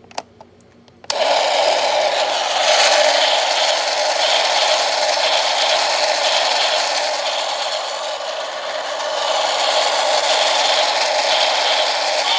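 Toy train running: a couple of small clicks, then about a second in a steady mechanical whirring rattle switches on suddenly and keeps going.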